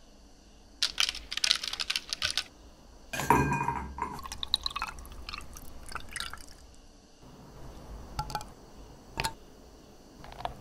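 Lemon juice dripping and spattering into a glass of ice as a lemon half is squeezed. Then a liquid is poured from a bottle over ice, splashing as it fills the glass, and a few light clicks follow near the end.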